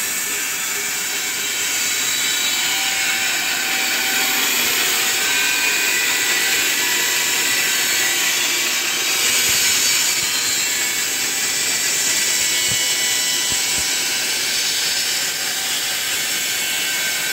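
Holzmann BBS 550smart log band sawmill running, its band blade cutting lengthwise through a timber as the saw head is pushed along the rail: a steady whirring hiss with a faint whine. A few light low knocks come about two-thirds of the way through.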